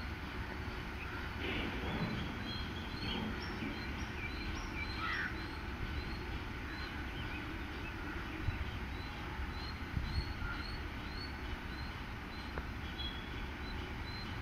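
Outdoor ambience of birds calling. Short high chirps repeat about twice a second, and a few louder calls come in the first five seconds, over a low steady rumble.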